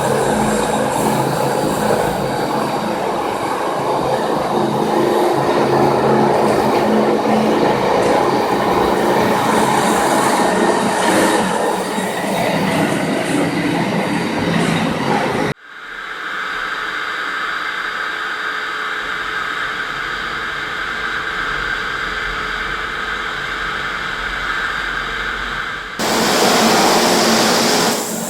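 Electric concrete floor grinder running, its diamond tooling grinding a concrete floor with a loud, rough, continuous noise. About halfway through the sound cuts off abruptly and becomes a quieter, steadier hum with a thin whine, then returns to full loudness near the end.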